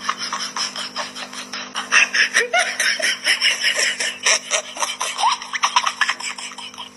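Laughter in quick, repeated giggling bursts over a steady low hum.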